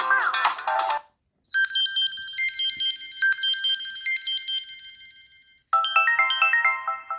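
Samsung Galaxy S3 ringtones and notification tones played one after another. A busy tune cuts off about a second in. After a short silence comes a high chiming melody that rings out and fades over about four seconds. Near the end another ringtone melody starts with quick stepped notes.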